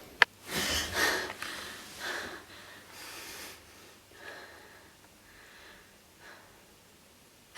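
A person's breathing: a short sharp click just after the start, then several breathy puffs and sniffs that grow fainter and further apart.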